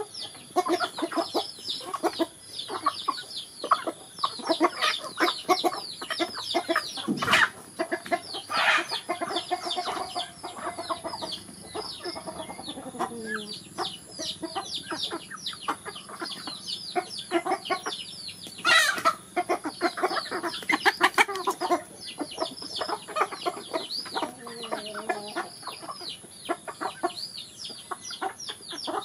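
A flock of chickens clucking and calling as they peck at feed, a dense, continuous patter of short calls and pecks. Two sharp clicks stand out, about 7 seconds in and again near 19 seconds.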